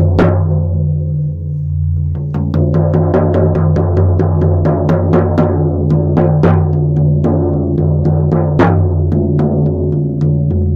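Drumming, several strikes a second with louder accents, over a steady low droning tone: music for a shamanic journey.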